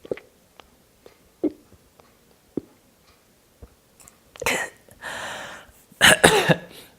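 A person swallowing water in a run of gulps with the breath held out and the nose pinched, as a hiccup remedy. Near the end they gasp for air and breathe out hard.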